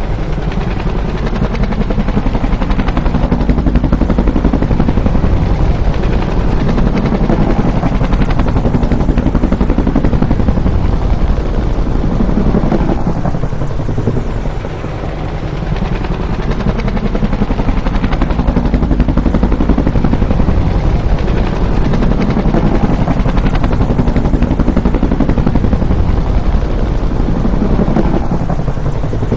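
Bell UH-1 "Huey" helicopter flying past, its two-bladed main rotor beating in a fast, loud throb. The sound swells and eases twice, the pitch falling as it passes.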